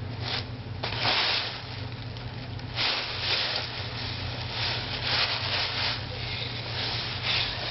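Thin plastic grocery bag crinkling and rustling in irregular bursts as a hand pushes and scrunches it into the gap under a door.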